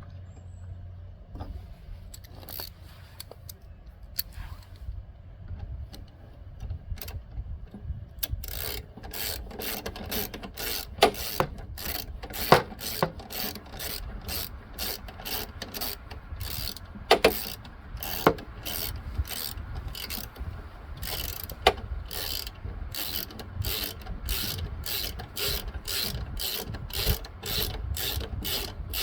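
Ratchet wrench clicking steadily, about two clicks a second, as a bolt on the mower's belt bracket is run in. The clicking starts about eight seconds in after quieter handling sounds, and a few louder knocks come among the clicks.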